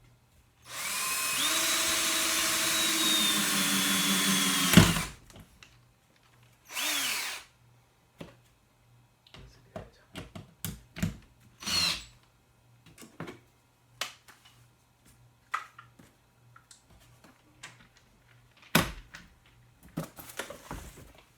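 Power drill running for about four seconds as it drives a screw into a wall stud: the motor spins up to a steady whine, then slows and stops with a sharp knock as the screw seats. A short second burst of the drill winding down follows, then scattered clicks and knocks.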